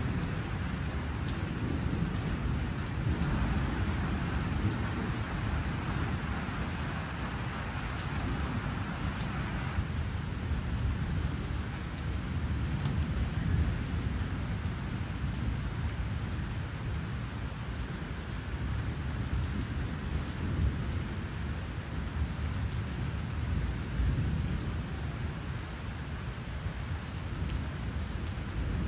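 Thunderstorm: steady rain with low rumbling thunder under it, swelling a little now and then.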